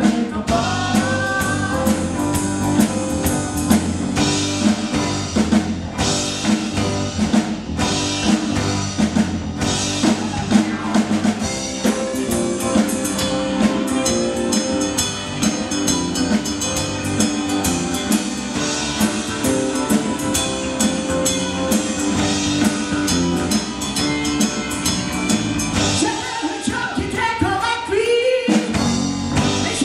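Live rock band playing: drum kit, electric bass and electric guitar, with a woman singing lead. The low end drops out briefly near the end.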